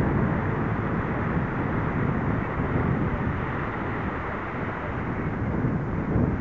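Steady rushing noise of wind on the microphone, with small waves washing at the water's edge.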